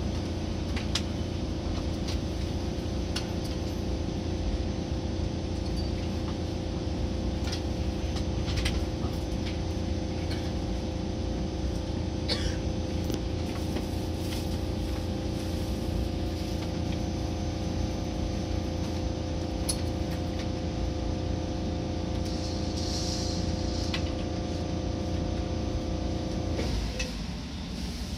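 Running noise inside a Seibu Red Arrow limited express car: a steady low rumble under a set of steady motor tones, with occasional sharp clicks. Near the end the motor tones stop and the sound drops.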